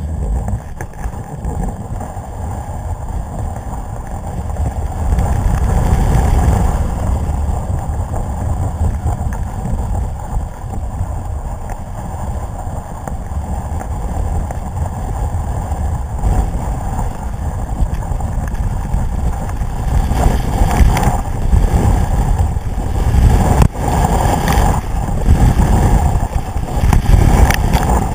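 Skis sliding and carving over packed snow, with wind buffeting the microphone of a boot-mounted camera: a loud, steady low rumble and hiss that grows rougher and more uneven, with sharp scrapes, from about twenty seconds in.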